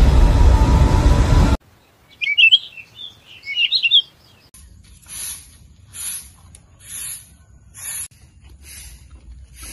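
Loud music cuts off abruptly about a second and a half in. Birds chirp briefly, then a broom sweeps pavement in regular strokes about once a second.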